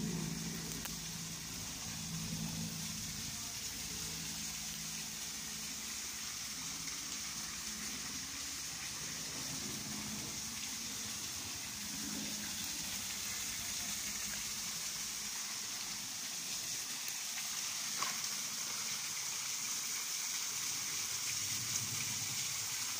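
Small waterfall: a thin stream of water falling off a rock ledge and splashing steadily into a shallow pool.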